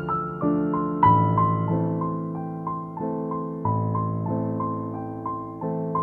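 Slow, gentle background piano music: a melody of single notes, each struck and fading, over deeper notes that change about once a second.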